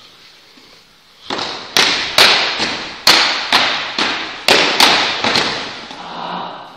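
Plastic training swords clacking against each other and against the fighters' armour in a fast exchange of blows: about ten sharp hits in four seconds, starting about a second in.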